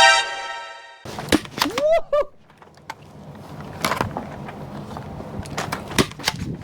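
Dubbed-in meme sound effect: a loud held tone that stops abruptly after about a second, followed by short sliding-pitch sounds. After that come scattered sharp clicks and knocks.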